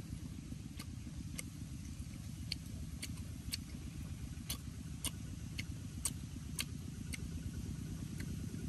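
A person eating: irregular short sharp clicks of chewing and lip smacking, a dozen or so, over a steady low rumble.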